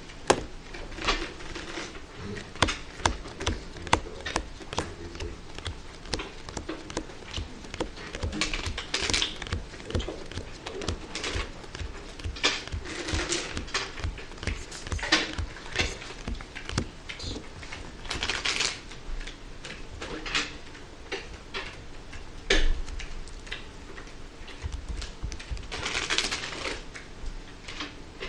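Playing cards being handled, shuffled and dealt onto desks: a quick, uneven run of clicks and flicks, with several longer rustling stretches.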